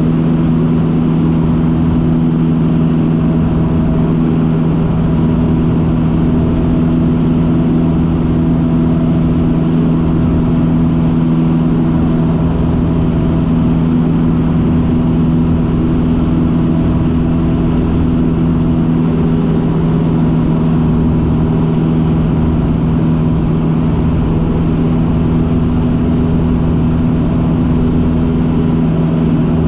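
Cessna 150's four-cylinder Continental O-200 engine and propeller in cruise flight, a loud, steady drone heard inside the cockpit.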